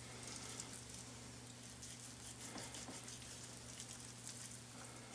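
Faint, quiet cutting: a chef's knife slowly slicing the fat cap off a prime rib roast, with a few soft ticks, over a low steady hum.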